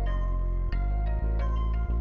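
Background music: a steady deep bass under pitched notes that change every half second or so.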